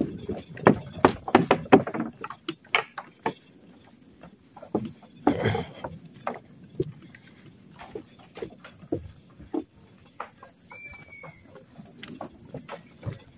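Footsteps on a wooden plank boardwalk, quick and loud in the first two seconds, then lighter and sparser, over a steady high insect drone. A single short chirp about eleven seconds in.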